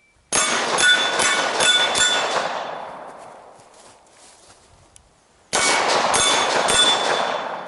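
Pistol shots on steel targets, each hit ringing the steel plate. A quick string of about five shots comes in the first two seconds and the ringing dies away. A second string of about five starts a little past halfway.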